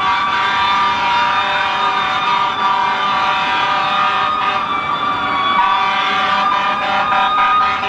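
Several emergency-vehicle sirens sounding at once, their tones overlapping and slowly shifting in pitch.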